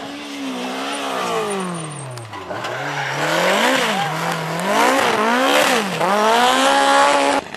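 Rally car engine at full throttle: the revs fall for a couple of seconds, then climb and drop sharply three times as it shifts up through the gears, growing louder. The sound cuts off suddenly near the end.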